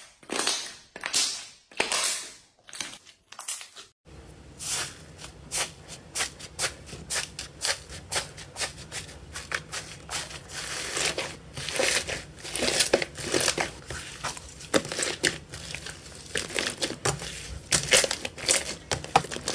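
Slime being pressed and squished by hand. First come a few separate squelching presses on a clear jelly slime. Then, about four seconds in, thick orange slime is kneaded in a metal tray with dense, irregular crackling pops.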